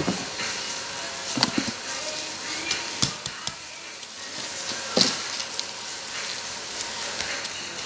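Knife cutting through the crisp skin of freshly roasted pork: a continuous crackling crunch, with a few sharper knocks of the blade on the board.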